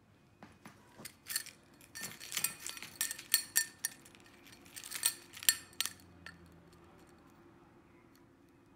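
A bunch of car keys on a metal keyring and carabiner clip jangling and clinking as they are picked up and handled, a quick irregular run of clinks that stops about six seconds in.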